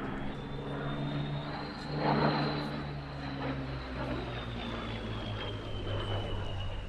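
Spitfire's Rolls-Royce Merlin V12 engine flying past. The note swells to its loudest about two seconds in, then drops in pitch as the aircraft moves away.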